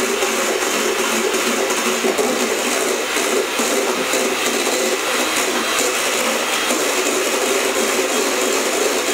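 Handheld electric mixer running steadily, its beaters whipping egg whites into meringue in a metal bowl.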